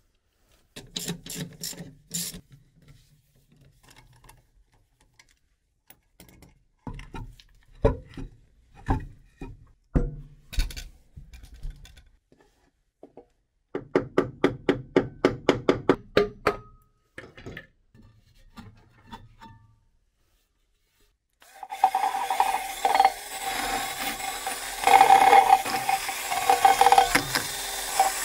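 Hand-tool work in short bursts of sharp strokes, one run going at about five strokes a second. For the last seven seconds a power tool runs steadily with a whine.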